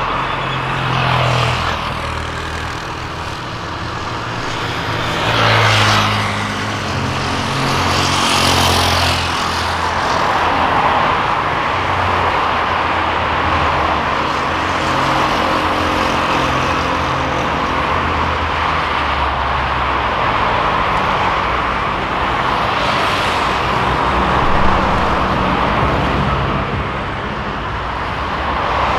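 Road traffic under a steady background drone, with several vehicles passing by as brief swells of tyre noise.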